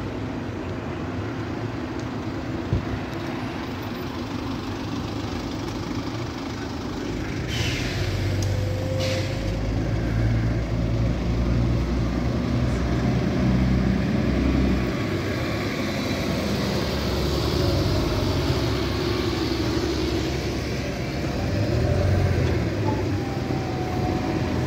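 Bus engines running as buses pull away and drive past, the engine note swelling twice as they come close. Two short hisses of air a second or so apart come about seven seconds in.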